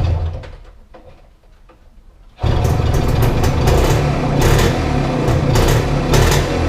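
Vespa 90's small two-stroke single-cylinder engine running with a fast, rattly beat. It fades away at first, then comes back in sharply about two and a half seconds in and runs on steadily.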